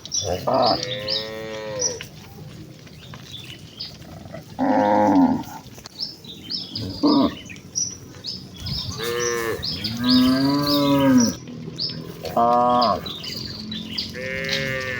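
Village cattle mooing: several cows calling one after another, about seven moos, some short and some long and arching in pitch. Quick high chirps repeat through the calls.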